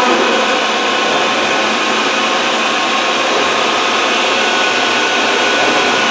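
Hyupshin Drillmaster gantry drilling machine running: a loud, steady whirring hiss with a faint steady whine over it.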